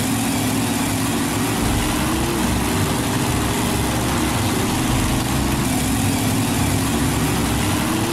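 Engine sound effect for a small work truck, running steadily at an even pitch; it cuts in abruptly.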